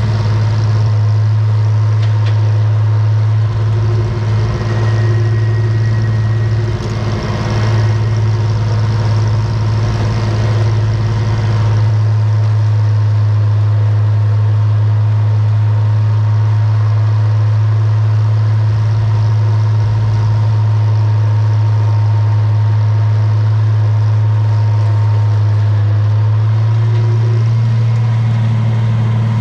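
International Harvester 706 tractor's six-cylinder engine running at a steady speed, a strong, even drone. An uneven low rumble sits underneath it for roughly the first twelve seconds.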